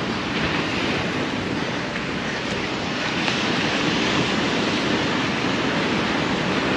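Ocean surf washing onto a sandy beach, mixed with wind buffeting the microphone: a steady rushing noise with no breaks.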